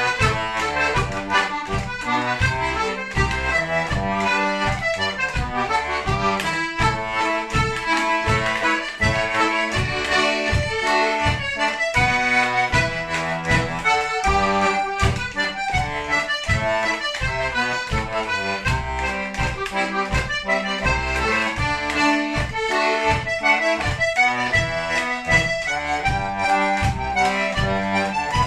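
Melodeon (diatonic button accordion) playing a lively traditional dance tune solo: a melody over a steady pulse of bass notes.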